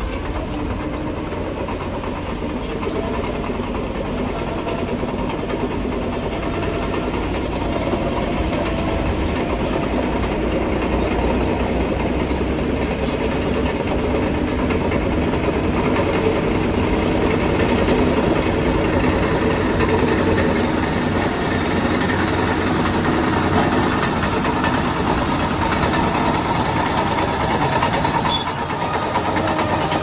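Shantui DH17C3 crawler bulldozer's diesel engine running steadily under load with its steel tracks clanking, as the dozer pushes and spreads dirt with its blade; it gets a little louder about halfway through.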